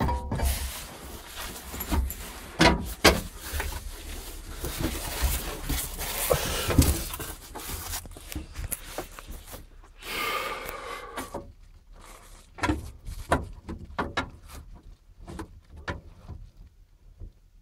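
Irregular knocks, clunks and rustling from someone climbing into a tractor cab and handling the door and controls, with a brief creak about ten seconds in. The engine is not running.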